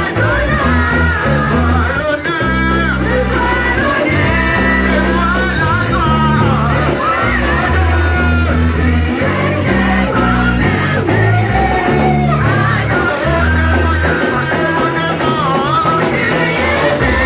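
Upbeat church worship music: singing over a prominent bass line that changes note every second or so, with guitar.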